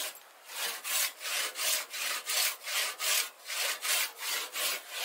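Hand saw cutting wood in steady back-and-forth strokes, about three a second, starting about half a second in.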